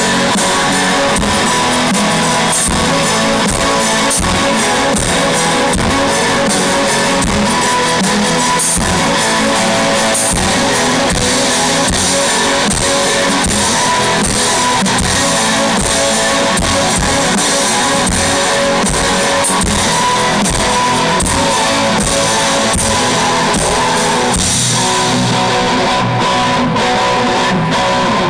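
Rock band playing loud through a PA: guitars and bass over a drum kit with a steady beat.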